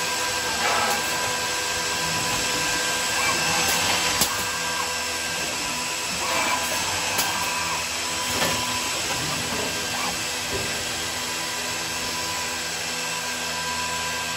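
Morbidelli Powerflex S through-feed drilling machine running: a steady mechanical whine with several held tones over a hiss, broken by a few sharp clicks and knocks.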